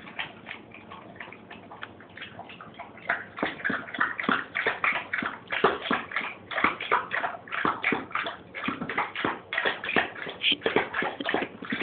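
A dog eating from a glass bowl: rapid, irregular mouthfuls of food, louder and busier from about three seconds in.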